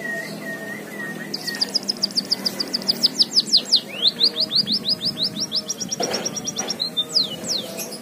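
White-headed munia (emprit kaji) singing a canary-style song learned from canaries: a few soft wavering notes, then from about a second and a half in a fast trill of high descending sweeps, about nine a second, lasting some five seconds, with two last sweeps near the end.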